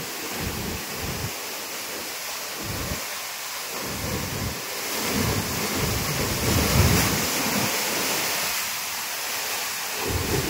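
A tall waterfall pouring into its plunge pool: a steady rush of falling water. Wind buffets the microphone in irregular low gusts, strongest a little past the middle.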